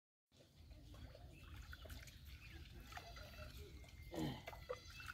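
Faint sloshing and trickling of shallow muddy pond water as a person wades and scoops mud by hand, over a low rumble, with a short animal call about four seconds in.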